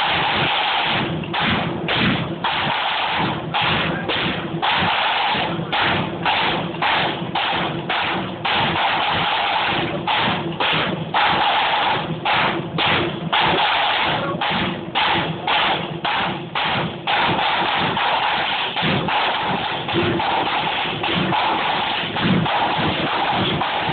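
Flute band drum corps playing a drum solo: snare drums rolling and rattling over a bass drum beat, in phrases broken by many short, crisp stops, running on more continuously for the last third.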